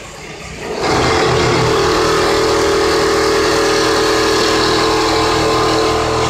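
Richpeace automatic template sewing machine starting up about a second in and then sewing at a steady pace, a constant mechanical hum with a few steady tones.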